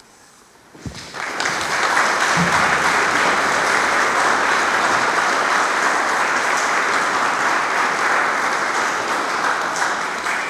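A congregation applauding, starting about a second in, holding steady, then dying away near the end.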